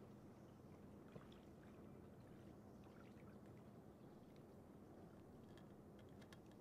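Near silence: faint steady outdoor background hiss with a few tiny ticks, one about a second in.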